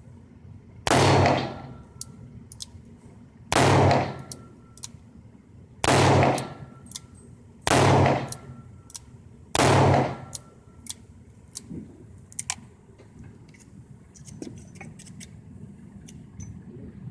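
Five shots from a Rossi M88 snub-nose revolver firing .38 Special, one every two seconds or so, each with a brief ringing tail, emptying its five-shot cylinder. Faint clicks and clinks follow.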